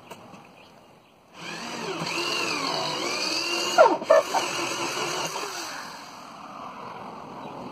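Power drill running, its motor pitch rising and falling with the trigger as it bores down through the pallet wood toward the roof-rack cross members, with a few sharp knocks around the middle.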